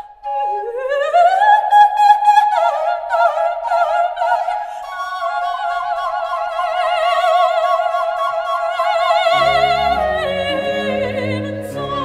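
Soprano singing an unaccompanied cadenza with a recorder in a baroque aria: a quick rising run into long held notes with a wide vibrato or trill, with no bass beneath. About nine seconds in, the low strings and continuo of the baroque orchestra come in under the closing note.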